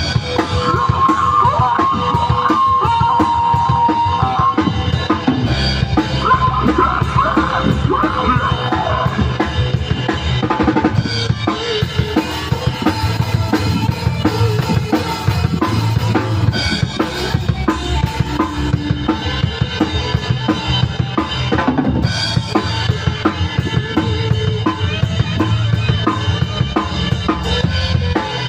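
A rock band playing an instrumental passage of a song, led by a drum kit with kick and snare keeping a steady beat under pitched instruments. A melodic line stands out in the first few seconds.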